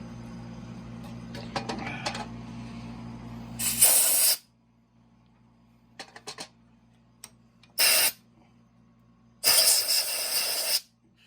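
Compressed-air blow gun fired in three bursts of hiss about 4 s in, briefly near 8 s and longest near the end, blowing drill and tap chips out of a freshly tapped hole in an aluminum motorcycle engine case. A steady machine hum runs under the start and stops just as the first burst begins, with a few light clicks between bursts.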